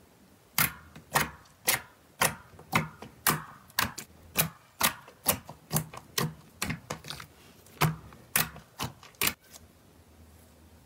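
Fingers poking and pressing into thick silver metallic slime, each press giving a sharp click or pop, about two a second, stopping a little before the end.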